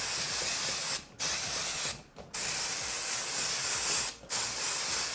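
Aerosol balloon shine spray hissing from the can in repeated bursts, with three short breaks; the longest burst lasts nearly two seconds.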